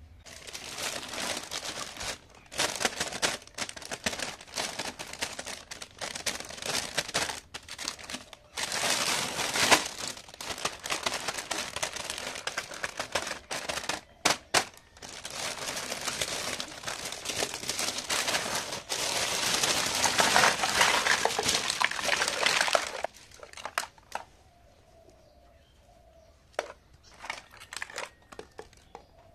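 Clear plastic packaging bag crinkling loudly and continuously as hands squeeze and rummage through it, full of toy plastic kitchen pieces. About three-quarters of the way in it stops, leaving a few light clicks.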